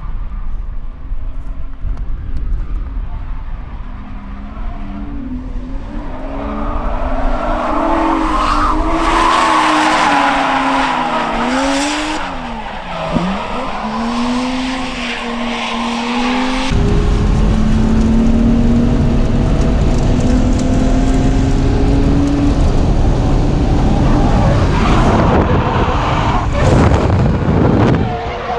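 Drift cars sliding through corners, their engines revving up and falling away with tyres squealing. There is a sudden change in the sound partway through.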